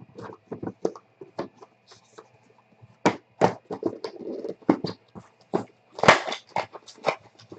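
Hands opening a 2015 Black Gold trading-card box: irregular scrapes, taps and rustles of the stiff cardboard lid sliding off, with the loudest scrape and rustle about six seconds in as the lid comes away from the foil-wrapped packs.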